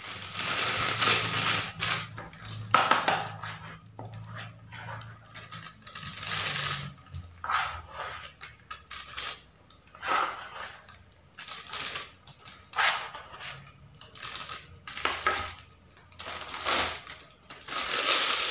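A thin plastic bag rustling and crinkling while a metal spoon scrapes and clicks against a plastic bowl, scooping soft bait dough into the bag, in short irregular bursts.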